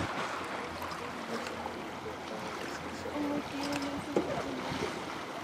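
Choppy river water lapping and splashing around a small boat, a steady rush, with faint voices murmuring briefly in the middle.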